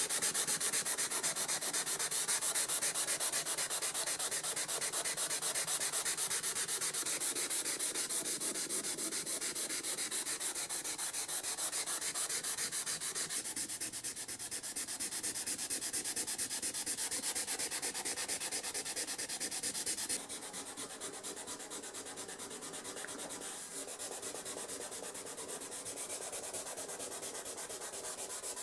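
Scotch-Brite abrasive pad scrubbed quickly back and forth over a rusted steel saw blade, rubbing off surface rust: a fast, even scratching hiss. It drops suddenly in level twice, about halfway and again about two-thirds of the way through.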